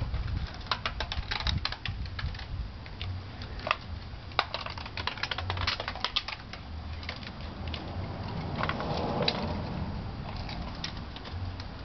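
Quick, irregular clicking and ticking in clusters, densest over the first half, with a brief scraping rustle about nine seconds in.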